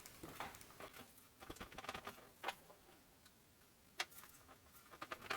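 Faint, scattered small plastic clicks and taps as fingers work at the wiring connector between the control boards of an Amica dishwasher, trying to unplug it. The sharpest clicks come about two and a half, four and five seconds in.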